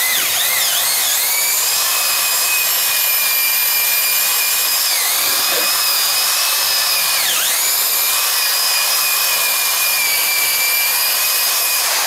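Electric drill spinning an 80-grit Flex-Hone ball hone inside a cast iron exhaust manifold runner, its abrasive balls scrubbing the port walls smooth. The motor whines steadily, wavering in the first second and dipping in pitch briefly twice, about five seconds in and again around seven and a half seconds, as the hone loads up.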